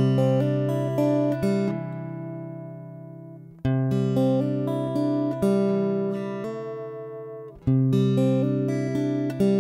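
Soundtrack music: a plucked guitar playing runs of picked notes that ring and fade, with a new phrase starting about every four seconds.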